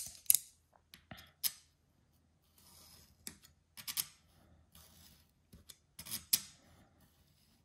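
A snap-off utility knife scoring a thin 0.2 mm aluminium sheet along a steel ruler: several short, sharp scratching strokes with pauses between them. The sheet is scored with a few light passes rather than cut through, so it can later be bent and snapped along the line.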